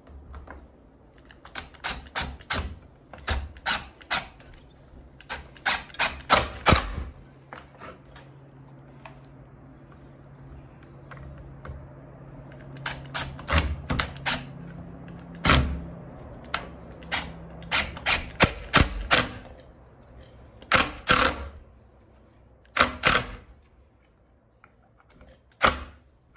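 Sharp knocks on wood in quick bursts of three to six strikes, from wooden blocking being fitted between roof rafters.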